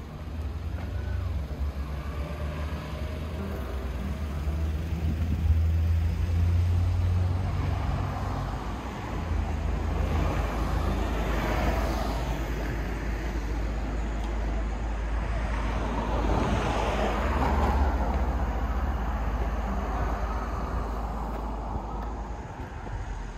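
Street traffic, with cars passing close by twice, each swelling and fading, over a constant low rumble.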